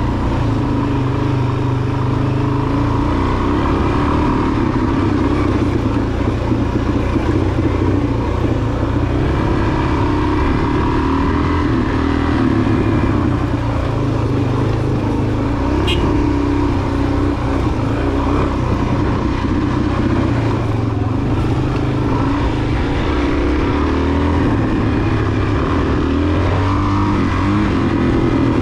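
Suzuki DR-Z400 dual-sport motorcycle's single-cylinder engine running while riding, its pitch rising and falling with throttle and gear changes.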